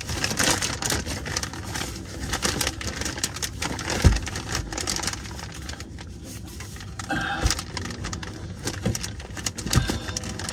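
Thin plastic bag crinkling and rustling as a gloved hand twists an oil filter off by hand through it, with one sharp knock about four seconds in.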